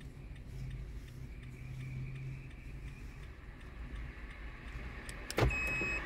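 Faint, regular ticking over a steady low hum. About five seconds in comes a knock, then a short, high electronic beep.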